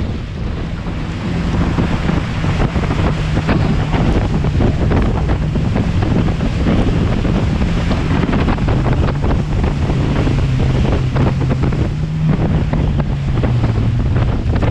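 Personal watercraft engine running under way, its pitch dropping a little about nine seconds in and again near the end, with heavy wind buffeting the microphone and the hull slapping and splashing through chop.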